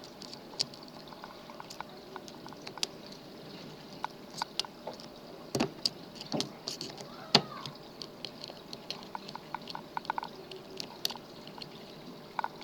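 Small irregular clicks and light scrapes of a pick and tensioner working the pins of a pin-tumbler lock, with a few sharper clicks around the middle.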